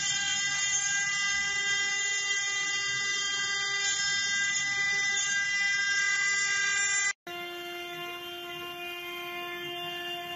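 Spindle of a 4-axis CNC stone carving machine running with a steady high whine while its bit carves a stone column on the rotary axis. The whine breaks off abruptly about seven seconds in and resumes quieter and slightly lower.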